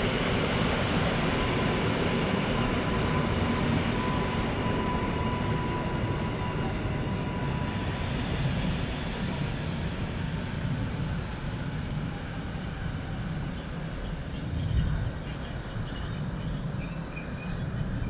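EN57-type electric multiple unit trains running through the station, with a continuous rumble of wheels on rail. A thin whine holds through the first half, and a high wheel squeal sounds in the second half. There is a low thump near the end.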